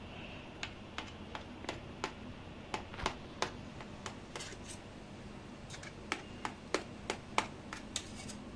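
Steel knife blade clicking and tapping against a stainless steel plate while cutting soft steamed dhokla into pieces: a string of sharp, irregular clicks, about two or three a second, with a short pause midway.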